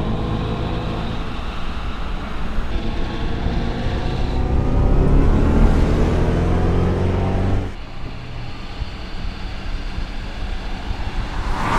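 Mercedes-AMG EQS 53 electric car driving, its drive sound a layered tone that rises in pitch as the car accelerates, then cuts off abruptly about eight seconds in, leaving quieter road noise.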